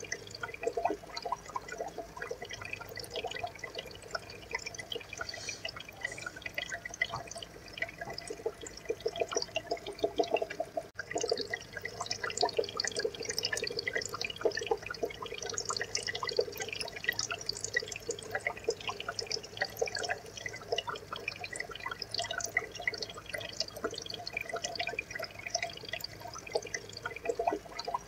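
Aquarium water trickling and bubbling steadily, a dense patter of small drips and splashes, with a brief dropout about eleven seconds in.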